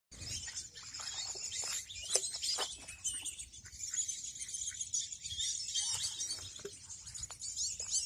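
Many small birds chirping and twittering together in a dense, continuous high-pitched chorus, with occasional short lower calls mixed in.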